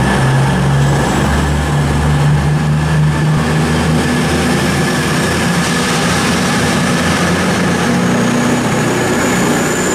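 CrossCountry Class 220 Voyager diesel multiple unit running at the platform, its underfloor diesel engines giving a steady drone. A faint high whine rises slightly near the end.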